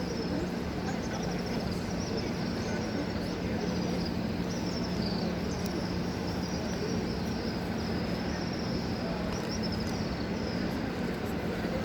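Steady murmur of a large crowd of worshippers circling the Kaaba, with a low steady hum and high chirping repeating throughout.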